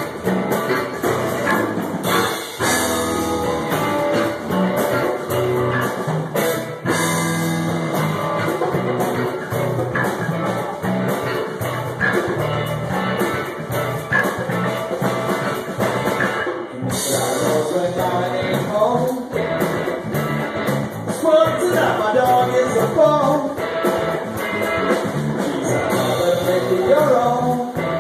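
Live band playing: electric guitar, bass guitar, drum kit and djembe.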